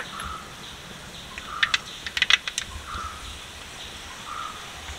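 Mustard seeds spluttering in hot coconut oil in a clay pot: a quick cluster of sharp pops and crackles in the middle, about a second and a half to two and a half seconds in. The popping is the sign that the oil is hot enough for tempering.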